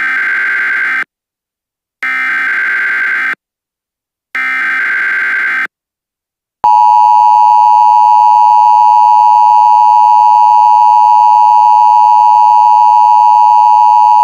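Emergency Alert System signalling: three bursts of SAME header data, each about a second long with a second's gap between them, then about six and a half seconds in the steady, louder two-tone EAS attention signal starts and holds.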